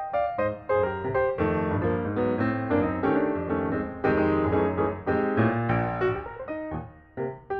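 Background music: piano playing a repeated pattern of notes, with a short dip near the end.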